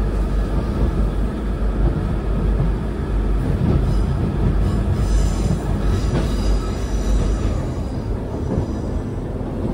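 Interior running noise of a Northern Class 150 diesel multiple unit: a steady low rumble of the train moving along the track, with a faint high squeal about five seconds in.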